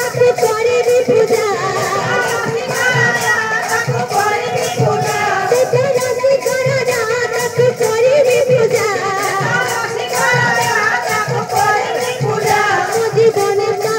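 Kirtan music: a woman singing a devotional melody over steady beats on barrel drums (khol), with an even metallic jingle keeping time above.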